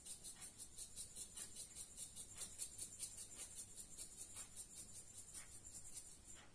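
Faint sound of salt being sprinkled by hand onto mashed pumpkin: a soft rustle about once a second, under a quick, even high ticking at about five a second.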